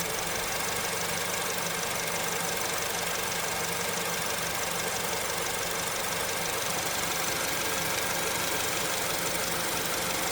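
2008 Acura RDX's 2.3-litre turbocharged four-cylinder engine running steadily at idle while misfiring, with the engine vibrating.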